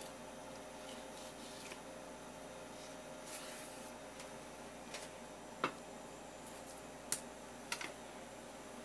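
Light knife-and-hand handling of a horse mackerel fillet on a wooden cutting board: soft scraping, then a few sharp taps and clicks against the board, one past the middle and a close pair near the end, over a steady faint room hum.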